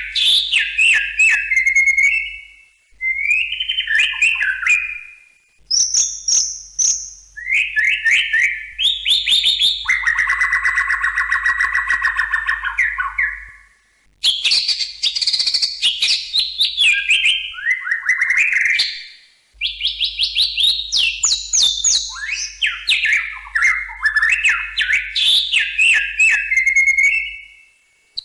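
White-rumped shama singing a varied song of fast whistles and chattering notes, in bursts of several seconds broken by short pauses. About ten seconds in, a harsh, buzzy phrase lasts some three seconds.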